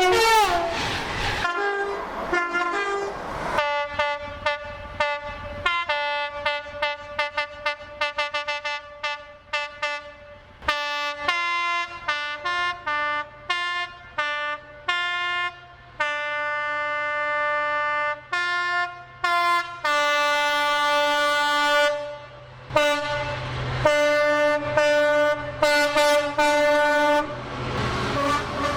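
Two-tone train horns: one falling in pitch as it passes, then a rapid string of short toots, about four a second, then longer blasts that switch between a high and a low note, some held for a few seconds.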